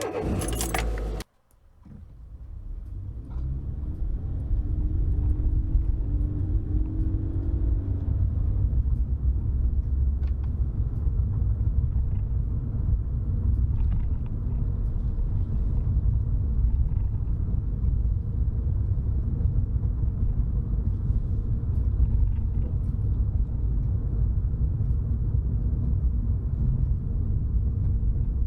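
A brief loud burst in the first second, then a car engine coming up with a rising pitch as the car pulls away, settling into a steady low rumble of a car driving, heard from inside the car.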